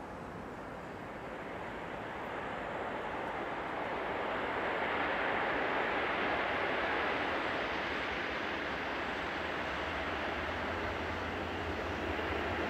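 Swiss Re 420 electric locomotive running light toward the listener: a noisy rumble of wheels on rail that grows louder over the first few seconds and then holds steady. A low hum joins near the end.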